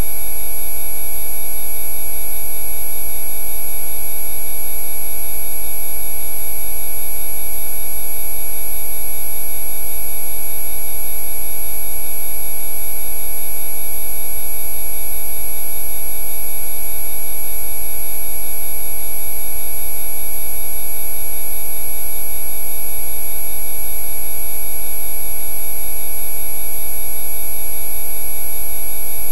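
Synthesized Rife frequency track: many steady electronic tones sound together, from deep bass to very high pitch, with a low hum beneath. The tones hold without change.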